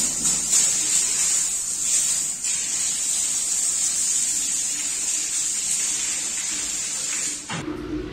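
Pressure washer spraying water onto a rug: a steady hiss that cuts off suddenly near the end, when a pigeon starts cooing.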